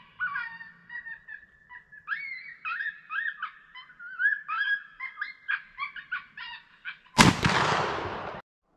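Electronic predator caller playing a coyote pup-in-distress sound: a run of short, bending, high yelps and screams meant to lure coyotes. About seven seconds in comes a single loud shot from a Savage 220 20-gauge slug shotgun, whose echo dies away and then cuts off suddenly.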